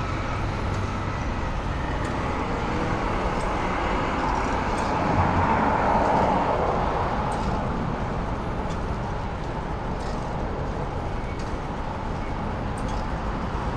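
Steady road traffic from the multi-lane road alongside, swelling about five seconds in as a vehicle goes past.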